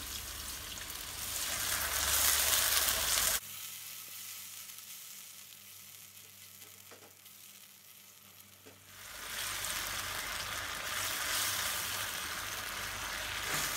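A pan of sautéed chilli, shallot, garlic and palm sugar sizzling hard as a little water goes in. The sizzling cuts off suddenly about three seconds in, then a quieter stretch with a couple of light clicks follows, and steady sizzling comes back about nine seconds in.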